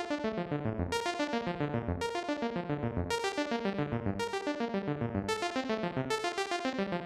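Background music: a synthesizer with an electric-piano sound playing a quick, repeating pattern of plucked notes, with a stronger note about once a second.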